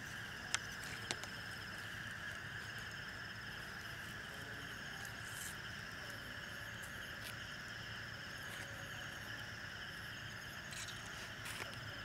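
Night insect chorus: a steady chirring, with a higher trill that comes and goes. A few sharp clicks sound within the first second or so and again near the end.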